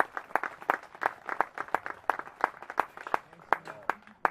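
Scattered applause from a small crowd, with individual claps standing out, thinning out toward the end as the flag reaches the top of the pole.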